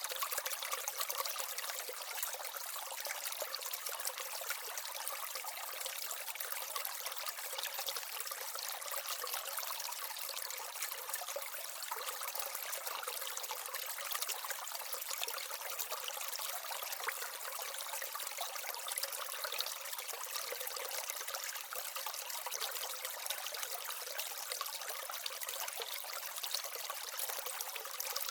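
Water from the small waterfall and stream of a tabletop aquaterrarium, trickling steadily.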